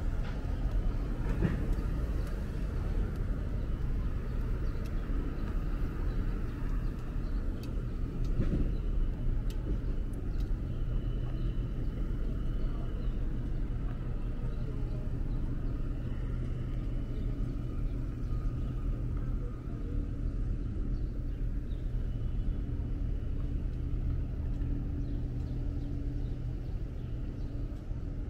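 City street traffic: a steady low rumble of cars and engines, with a steady hum underneath and a couple of brief knocks.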